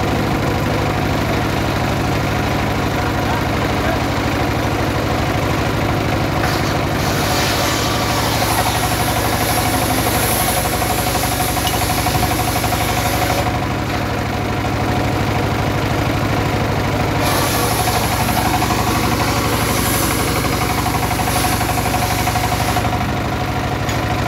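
Single-cylinder diesel engine running steadily, driving a homemade circular saw bench that rips teak logs. The blade's high-pitched cutting noise rises over the engine twice, each time for about six seconds, with a short pause between.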